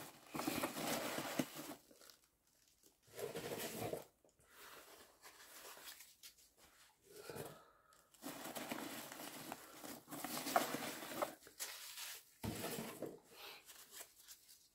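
Packing peanuts rustling and crinkling in a cardboard box as hands rummage through them, in bursts that start and stop several times.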